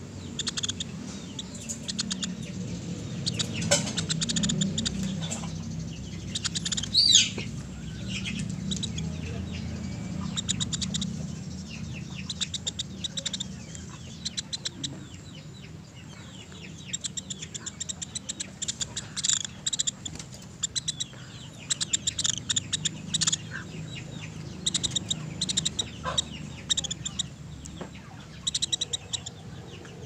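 Pelatuk beras, a small woodpecker, calling: quick runs of short, high chips and rattles, with one louder falling note about seven seconds in. A low steady hum sits underneath, strongest in the first half.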